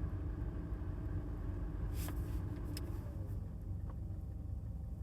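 Car engine running at a steady low rumble, heard from inside the cabin, with a couple of faint clicks about two and three seconds in.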